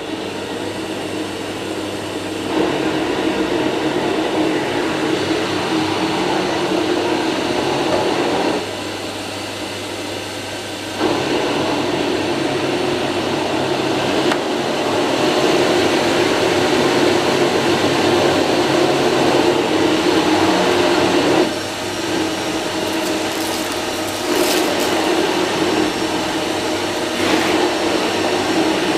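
Electrolux UltraFlex Green canister vacuum cleaner starting up and running on its lowest suction setting, a steady motor hum whose sound dips and rises several times.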